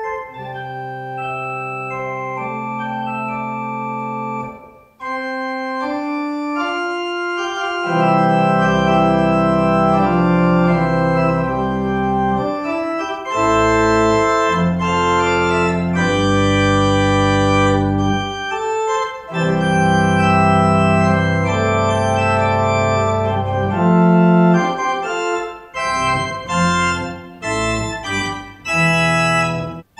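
Organ played solo: held chords, with a deep bass line joining about eight seconds in. The playing breaks off briefly about five seconds in and again near nineteen seconds.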